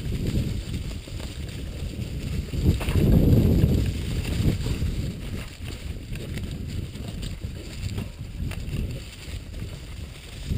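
Mountain bike ridden fast down leaf-covered dirt singletrack, heard from a camera on the bike: wind buffeting the microphone, tyre and frame rumble, and scattered short knocks and rattles. The rumble swells about three seconds in.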